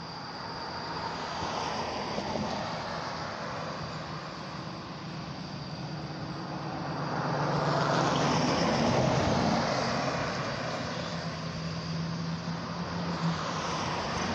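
Road traffic passing: vehicle engine and tyre noise swells to its loudest about eight seconds in and then eases off, over a steady low engine hum.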